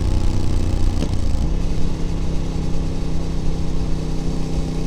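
Voge DS 800 Rally's parallel-twin engine running through an unbaffled Scorpion slip-on exhaust, cruising at motorway speed under wind and road noise. The engine note drops a little about a second and a half in, then holds steady.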